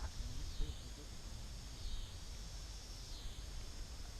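Evening insect chorus: a steady high buzzing that swells and eases about every second and a half, over a low outdoor rumble.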